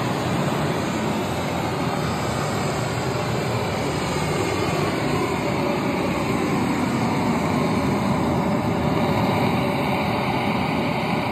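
Loudspeaker playing Meyer Sound's M-Noise measurement signal: a loud, steady noise spread across the whole range from deep bass to treble, fed from a Dynacord L-series amplifier in a long-term level test of an FIR preset.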